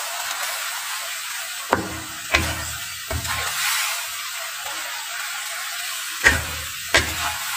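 Instant fried noodles sizzling in a wok, with a steady hiss, while a wooden spatula stirs and tosses them. The spatula knocks sharply against the pan about five times.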